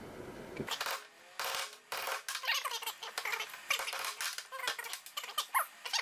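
Quick, uneven series of sharp taps and clicks from a ball peen hammer driving the pin out of a truck quarter-window latch link on a wooden block, with short, high, chirpy squeaks between the taps.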